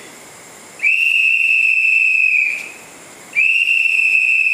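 A night watchman's whistle blown in two long, steady, high blasts, the first about a second in and the second near the end, each held for well over a second, as the guard signals on his night patrol.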